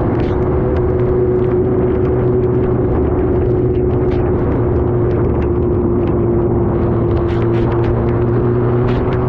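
Superbike engine running at steady low revs while riding slowly, its pitch sagging slightly midway, over a hiss of wind and spray on a wet road with scattered small ticks.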